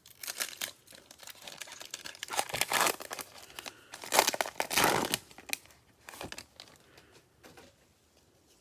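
Wrapper of a Panini Mosaic basketball card pack being torn open and crinkled, in three louder stretches over the first five seconds, then fainter handling that fades out.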